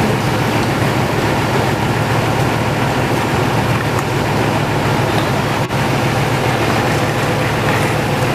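Off-road rally truck's engine running with a steady low rumble as the truck drives through a muddy track.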